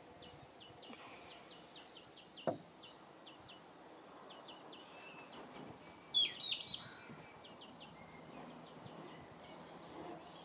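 Faint outdoor background with small birds chirping now and then, and a livelier run of chirps about six seconds in. A single sharp click sounds about two and a half seconds in.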